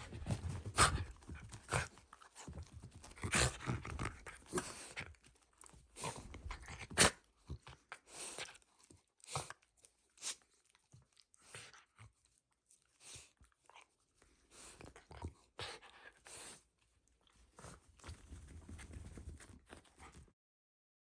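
A Shiba Inu moving about close by: irregular scuffs, clicks and rustles, some of them sharp.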